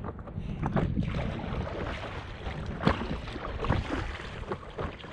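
Water sloshing and slapping against a stand-up paddleboard with the splashes of paddle strokes, and wind rumbling on the microphone.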